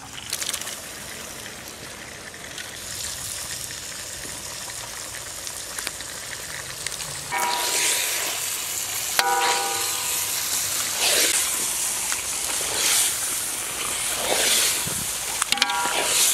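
Raw stingray pieces sizzling as they land in hot red masala in a large iron kadai. From about seven seconds in, a metal ladle stirs the pieces: the frying hiss rises and falls with each stroke, and the ladle rings briefly against the pan a few times.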